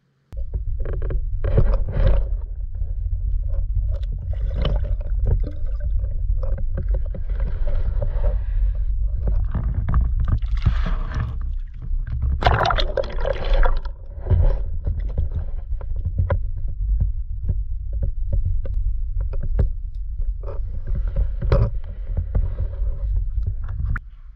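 Water sloshing and knocking against an underwater camera as it is moved through the water and near the surface: a steady, muffled low rumble with frequent knocks and bursts of splashing, cutting off suddenly near the end.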